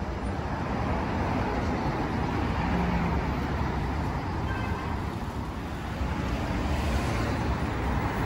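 Steady road traffic noise of a busy city street, cars running past without a break.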